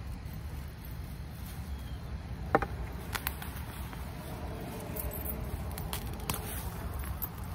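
A collard green plant being cut with a knife and pulled up by the root: several sharp snaps and clicks of stalk and leaves over a steady low rumble.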